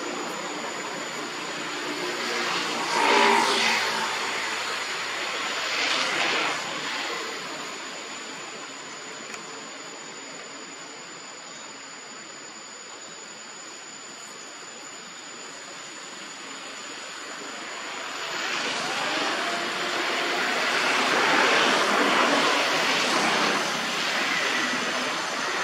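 Distant engine noise that swells twice, about three seconds in and again near the end, over a faint steady high-pitched whine.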